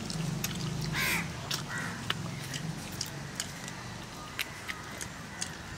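A crow caws once, harshly, about a second in, with a fainter second call just after, over scattered soft clicks of hand-eating and chewing.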